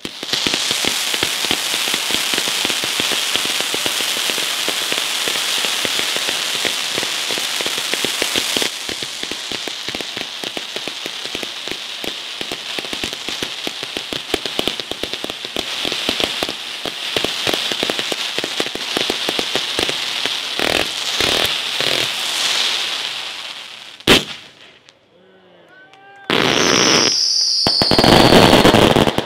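A Neapolitan-style firecracker battery firing on the ground: a long, dense string of rapid firecracker reports that thins out after about twenty seconds. One sharp bang follows, then a final loud burst of crackling with a high whistle over it near the end.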